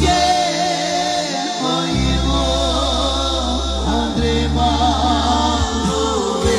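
A Slovak Roma dance band playing live through a PA, with a singer's wavering vocal line over electric guitar, keyboard and long-held bass notes. The bass note changes about four seconds in.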